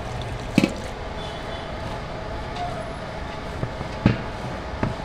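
Hands tossing and squeezing wet shredded cabbage with chilli powder and water in an aluminium bowl, over a steady background hum, with three sharp knocks spread through it.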